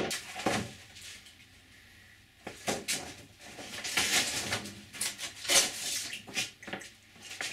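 Clear plastic sheeting rustling and crinkling as it is handled, in irregular short rustles with a lull about a second in.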